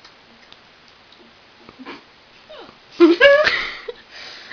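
A person hiccuping: one loud, sudden voiced hiccup about three seconds in, fading out over about half a second, with smaller catches of breath before it and another hiccup starting right at the end.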